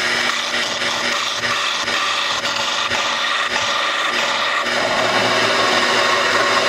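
Lathe turning a wooden croquet mallet handle held between centres, with a cutting tool taking wood off the spinning piece: a steady motor hum under a rough scraping hiss.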